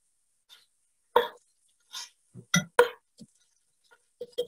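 A cooking utensil clinking against a pan, several sharp, irregular clinks, as short ribs searing in it are turned over.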